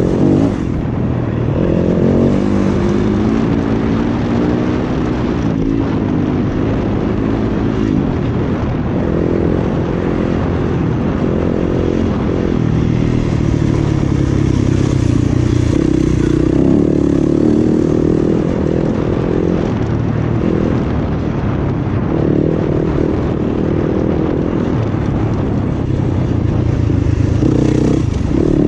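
Single-cylinder dirt bike engine racing on a tight off-road track, revving hard and dropping back over and over as the rider rolls on and off the throttle and shifts. Rattles and scrapes from the bike run underneath.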